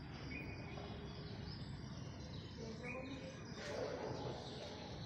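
Steady outdoor background noise with a few short bird chirps.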